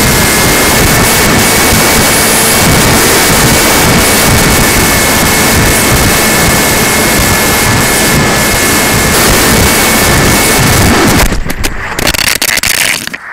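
RadJet RC plane's electric motor and propeller running at speed: a steady high whine over a heavy rush of wind noise. About two seconds before the end the sound breaks up into choppy dropouts and falls away.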